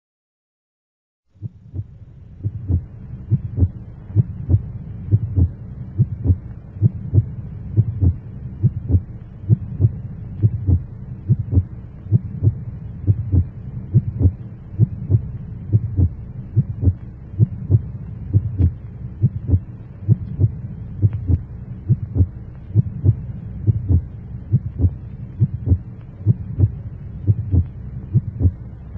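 Heartbeat sound effect: repeated low thumps, about two a second, over a steady low hum, starting about a second and a half in.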